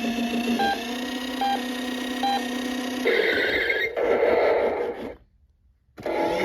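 An electronic gadget's speaker beeping: short high beeps about once every 0.8 seconds over a steady low hum, then a louder noisy stretch of electronic sound. About five seconds in it cuts off abruptly, and music starts just before the end.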